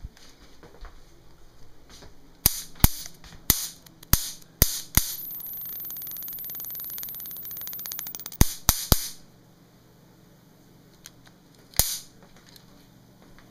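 2400-volt, two D-cell electric bug zapper racket zapping insects on its mesh. A run of sharp electric snaps is followed by about three seconds of continuous crackling arc with a high whine, then three more quick snaps and a last single snap near the end.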